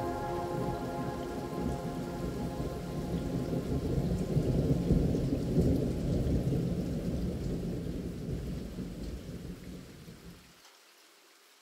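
Rolling thunder with steady rain, swelling to a peak around the middle and fading away, its low rumble cutting off shortly before the end. The last notes of ambient music die out about a second in.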